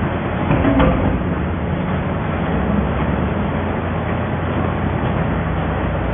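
Automatic cardboard baler running with a steady low machine hum, with a brief louder knock just under a second in.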